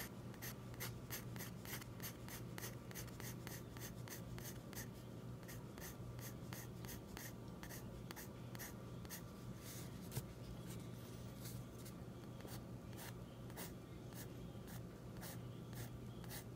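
Graphite pencil sketching on paper: quick, short strokes, several a second, each a light scratch.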